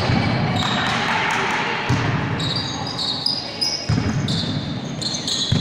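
Indoor volleyball rally: the ball is struck with dull thuds every couple of seconds, shoes squeak in short high chirps on the court floor, and players call out, all echoing in a large gym hall.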